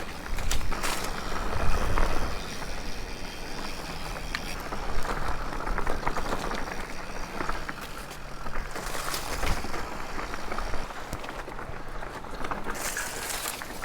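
Mountain bike riding over a rough singletrack dirt trail: steady tyre noise on dirt and rock, broken by scattered knocks and a few brief hissing bursts.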